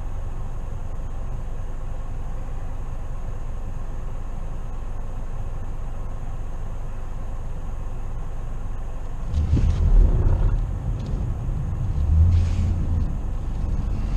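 Steady low rumble of a car driving, heard from inside the cabin. It swells louder twice, about nine and about twelve seconds in.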